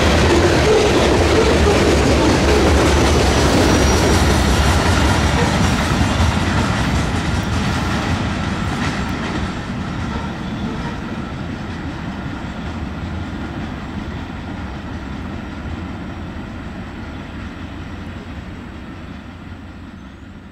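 Freight train's covered hopper cars rolling past, steel wheels running over the rail. The sound fades steadily after about six seconds as the end of the train moves away.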